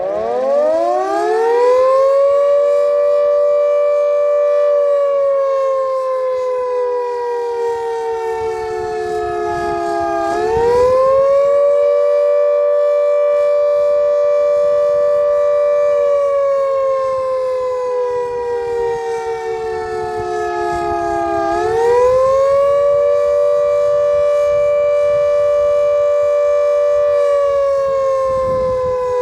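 Civil defence air-raid siren sounding the attack warning: it winds up from rest and then wails, two notes at once, each cycle rising quickly, holding for about five seconds, then sinking slowly before climbing again, about every 11 seconds.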